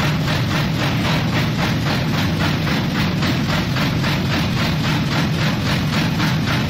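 Namak para dough-cutting machine running: a steady motor hum with an even, fast chopping rhythm of about four strokes a second.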